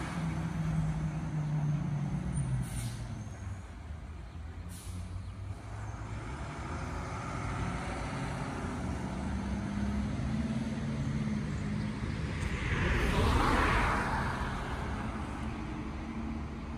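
Flatbed tow truck's engine running as it drives away, with a following car. About thirteen seconds in there is a loud hiss of air that swells and fades.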